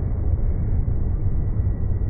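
Steady low rumble of a Toronto subway train alongside an underground station platform.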